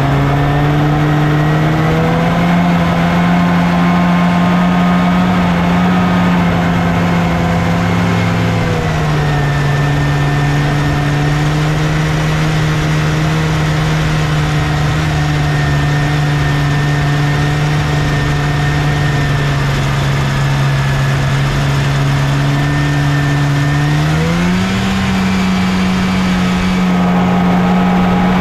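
1979 Scorpion Whip 440 snowmobile's Cuyuna two-stroke twin running under load while the sled breaks trail through snow, heard close up from its hood. The engine's pitch steps up about two seconds in, falls back near nine seconds, and climbs again about twenty-five seconds in, holding higher to the end.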